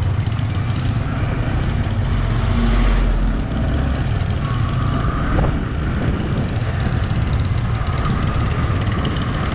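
Yamaha R15 V3 motorcycle under way, its single-cylinder engine running steadily with wind noise over the microphone; the engine swells briefly about three seconds in.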